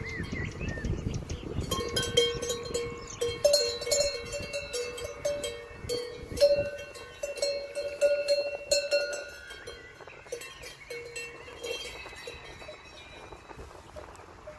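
Metal cowbells on the collars of walking cows clanking irregularly. Each stroke rings on with a clear tone, thickest in the middle and thinning out near the end. A few bird chirps sound in the first second.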